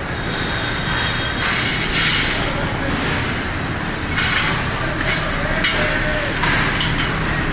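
Steady, loud factory-floor din of a welding and metal-fabrication shop, with several short hissing bursts rising out of it every second or two.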